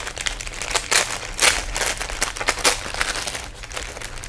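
Clear plastic bag crinkling as the model-kit sprue inside it is handled, an irregular run of crackles.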